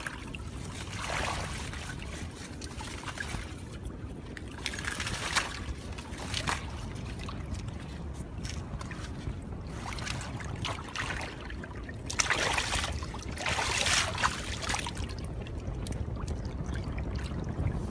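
Water splashing and trickling in irregular surges every few seconds, over a steady low rumble.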